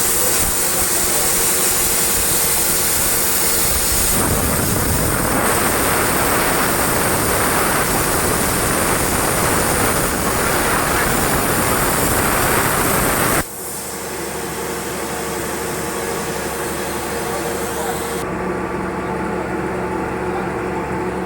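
CNC plasma cutter's torch cutting steel plate: a loud steady hiss that grows harsher about four seconds in, then cuts off suddenly about thirteen seconds in, leaving a quieter steady machine hum.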